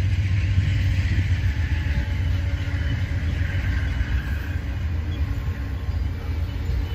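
Amtrak Superliner double-deck passenger cars rolling past: a steady rumble of wheels on rail with a hiss over it.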